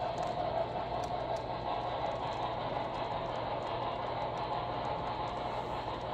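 HO scale model passenger train rolling along the track: a steady rumble of metal wheels on rail, sprinkled with light clicks as the cars pass over the rail joints.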